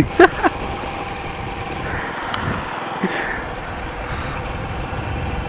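Small commuter motorcycle's engine running steadily at low speed as it rides through shallow seawater, its tyres splashing water up.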